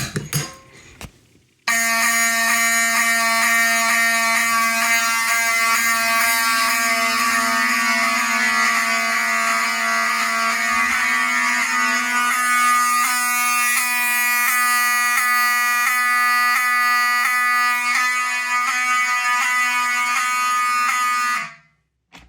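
Wheelock mechanical horn strobes sounding a loud, steady, buzzing continuous horn in fire alarm. It starts suddenly after a few sharp clicks and cuts off abruptly near the end.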